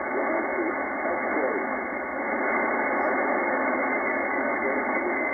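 A weak single-sideband voice station on the 20-metre band heard through a FlexRadio receiver. A distant operator's speech is barely audible under steady band hiss, and the audio is thin and narrow from the receive filter. The receiver's AGC threshold is turned down to about 48 and the station is still hard to copy.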